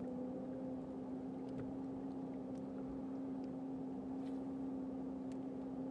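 Bow-mounted electric trolling motor running with a steady, even hum.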